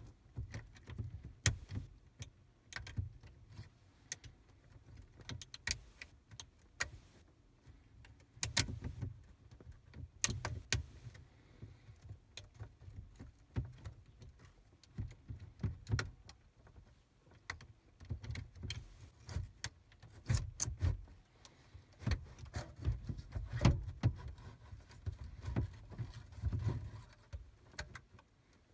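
Irregular plastic clicks, rattles and knocks from hands handling car interior trim, parts and cables, with dull low thumps in between.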